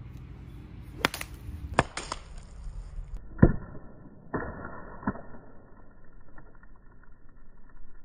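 A golf iron striking the ball off pine-needle-covered ground among trees: one loud, sharp hit about three and a half seconds in, with a few lighter clicks and knocks before and after. The hit is heavy enough that the golfer feared the club would break.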